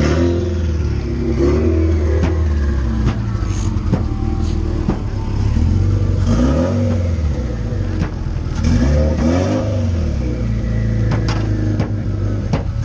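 Turbocharged FA20 boxer-four in a widebody sports coupe revved several times while standing still, the engine note climbing and falling back with each blip.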